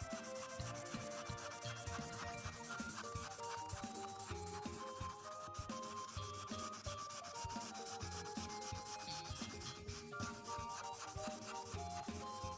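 Ohuhu Honolulu series marker tip rubbing on paper in rapid back-and-forth coloring strokes, over background music with a simple melody.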